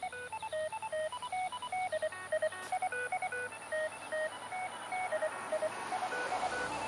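A hidden fox transmitter's tone sequence received through a handheld ham radio's speaker: a rapid run of short beeps jumping between different pitches, like a little tune. A hiss grows under the beeps near the end.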